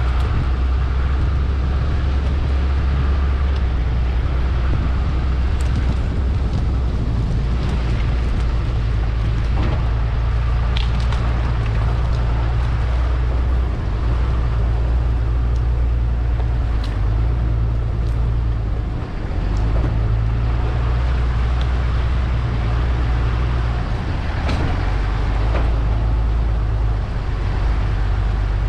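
Heavy equipment's diesel engine running under load, its low drone stepping up and down in pitch every few seconds as the load changes. A few sharp clicks are heard.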